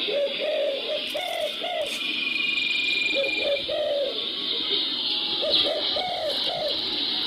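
Dove cooing in short repeated phrases of low notes, a new phrase about every two seconds, played from a TF-card bird-call speaker as a trapping lure. A steady high hiss runs underneath.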